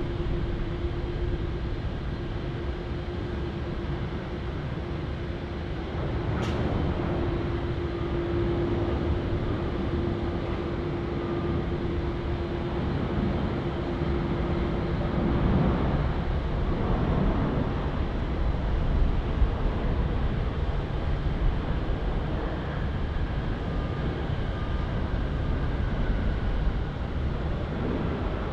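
Boeing 787-9 with GEnx engines landing: a steady engine hum on final approach, then from about halfway through a broader, louder rush of engine and runway noise as the jet touches down and slows on the runway.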